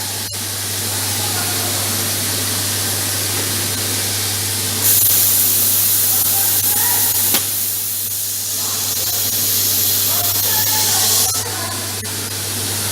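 CNC plasma cutting torch hissing steadily over a constant low electrical hum, turning louder and sharper for a couple of seconds about five seconds in.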